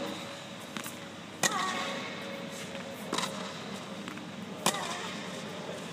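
Tennis rally: sharp pops of the racket striking the ball, the two loudest about a second and a half in and near the end, with a clearer hit just after three seconds and a fainter one before the first. Each pop rings briefly in the domed hall over a faint steady hum.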